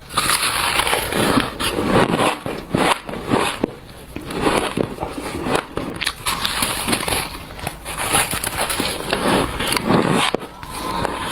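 Close-up bites of shaved ice: repeated squeaky, crunchy chewing and crackling as the packed ice is bitten and compressed between the teeth.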